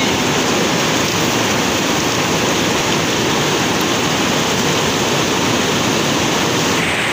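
Steady rush of a fast-flowing river pouring over rocks and rapids.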